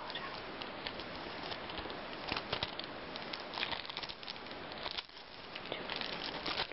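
Paper and tape crackling and rustling in the hands as a bookmark is peeled free of its cardboard backing: many small irregular ticks over a steady hiss.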